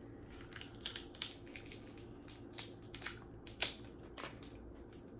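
Boiled seafood shells cracked and snapped apart by hand: a run of irregular sharp cracks and crunches, the loudest a little past halfway.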